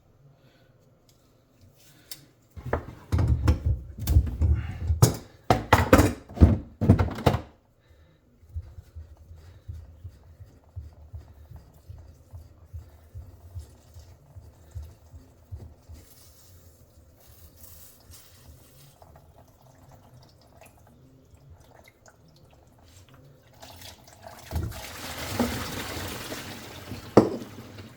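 Plumbing work at a kitchen sink drain. A run of loud knocks and clatter lasts about five seconds. Near the end comes a few seconds of rushing water, broken by one sharp thunk.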